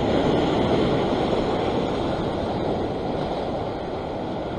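Ocean surf washing and foaming over the rocks below, a steady rushing wash that slowly eases off.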